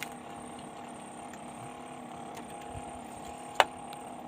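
A steady mechanical hum with several held tones, with a few light clicks and one sharp click about three and a half seconds in.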